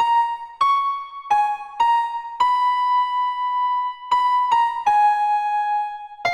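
Background music: a simple, slow melody played one note at a time on an electric piano or keyboard, with one longer held note near the middle.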